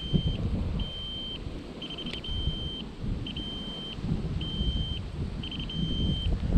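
An electronic beeper on the boat sounding a steady high-pitched beep about once a second, each about half a second long, several of them led in by a quick run of short pips.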